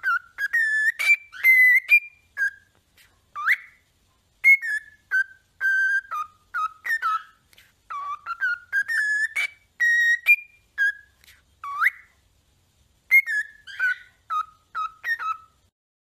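Cockatiel whistling a string of short, clear notes, several of them sliding upward, with a pause about four seconds in and another about twelve seconds in.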